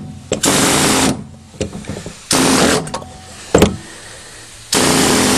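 A handheld power tool cutting into the van's metal fuel filler neck in three short bursts, with a sharp click between the second and third. It is enlarging the opening so the filler takes a larger diesel pump nozzle.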